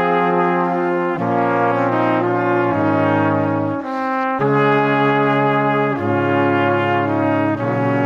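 Background music: sustained brass-like chords that change about every second, with a short break just before the middle.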